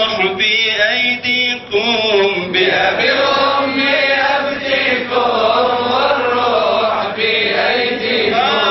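A man chanting a Sufi qasida unaccompanied, drawing out long notes that waver and glide in pitch.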